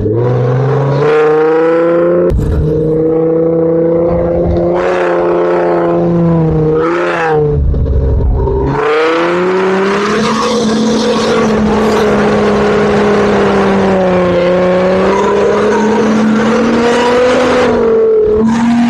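Off-road 4x4 engine running hard in soft sand, its pitch rising and falling with the throttle. From about nine seconds in, a loud rushing noise of wind and flung sand joins it.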